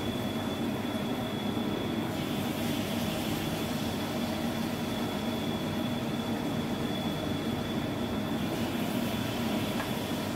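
Kitchen range hood extractor fan running with a steady hum and a thin whine, over the hiss of hot oil sizzling in a wok as spoonfuls of batter are fried.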